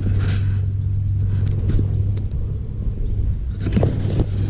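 Boat motor humming steadily at a low, even pitch, with a couple of light clicks partway through.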